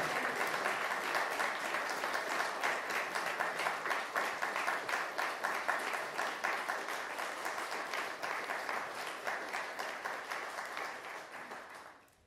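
Audience applauding, many hands clapping at once. The applause slowly thins and dies away near the end.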